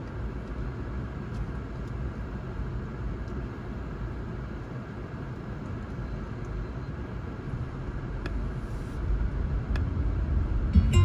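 Steady low rumble of a car driving on city streets, with a few faint ticks.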